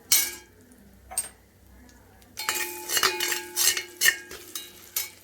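A metal spoon clinking against metal cookware: one sharp clink, another about a second later, then a quick run of clinks and knocks with ringing metal from about halfway through.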